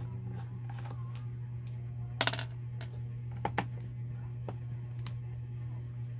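Handling noise on a wooden workbench: scattered clicks and knocks from a screwdriver and the plastic body of a corded drill. About two seconds in, a loud metallic clatter with a short ring comes as the screwdriver is put down, followed by two quick knocks as the drill is gripped. A steady low hum runs underneath.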